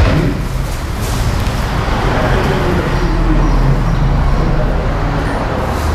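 Motorcycle three-cylinder engine of a new Yamaha Tracer 9 running steadily at idle, a low, even rumble.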